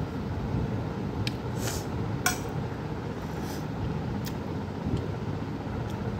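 Child eating noodles, slurping strands into the mouth, with a few short tableware clinks, the sharpest a little over two seconds in, over a steady low rumble.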